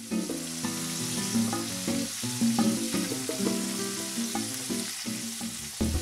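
Ground beef sizzling as it browns in a frying pan, stirred and pushed around with a wooden spoon. Background music plays underneath.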